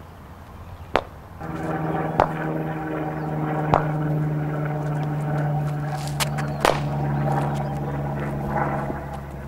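A steady, pitched droning hum like a motor running sets in about a second and a half in and eases off near the end. A handful of sharp knocks sound over it.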